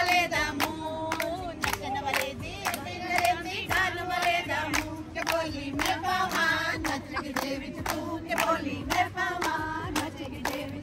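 A group of women singing together, with hand-clapping keeping time at about two claps a second.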